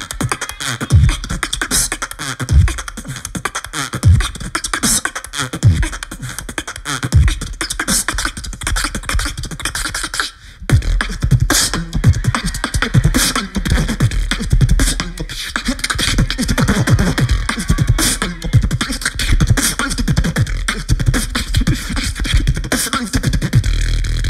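Competitive solo beatboxing through a handheld microphone and PA: a steady beat of vocal kick drums and snares with crisp hi-hat clicks. About ten seconds in it cuts out briefly, and the second beatboxer takes over with heavier sustained bass under the beat.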